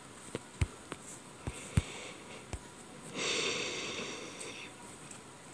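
A few light taps on a touchscreen, then a long breath through the nose close to the microphone, a hissing sniff or exhale of over a second that starts about three seconds in.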